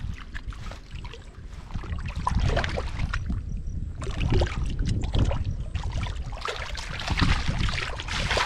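Water splashing and sloshing irregularly, with many short sharp splashes.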